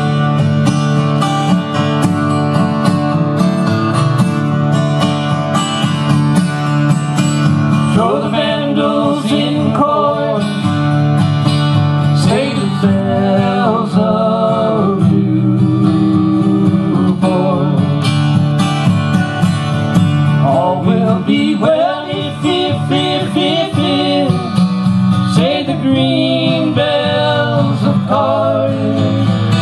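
Two acoustic guitars strumming a folk song live, with two men's voices singing together over them for much of the time.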